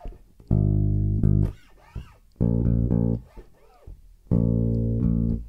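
Four-string electric bass played with the fingers: three short phrases of low plucked notes, each about a second long, separated by short gaps.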